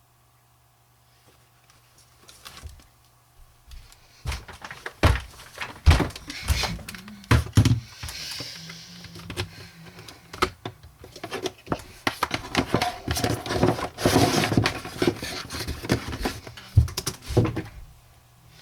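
Irregular knocks, thunks and rustling from objects being handled, starting about four seconds in after a few quiet seconds with a faint steady hum.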